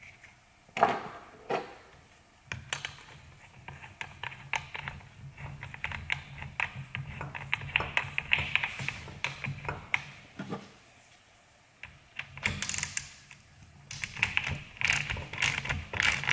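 Ratchet clicking rapidly as the nut at the top of a coil-spring strut is run down, in two long spells with a short pause between them. Two sharp knocks about a second in.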